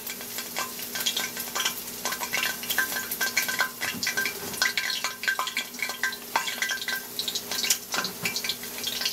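Food frying in a pan of hot grease: a steady crackling sizzle of many small pops, with light clinks and scrapes of handling.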